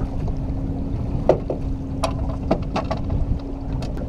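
Wind buffeting the microphone in a steady low rumble over a faint steady hum, with several sharp knocks and splashes as a landing net is worked in the water against an aluminium boat's side.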